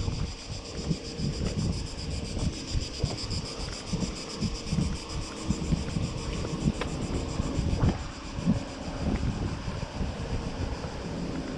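Wind buffeting the microphone in uneven gusts. A high, fast-pulsing buzz runs in the background and fades about eight seconds in.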